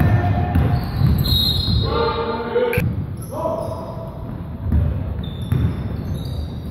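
Basketball game play in a gym: a ball bouncing on the hardwood in repeated thumps, with players' shouts and short squeaks over it, and one sharp knock about three seconds in.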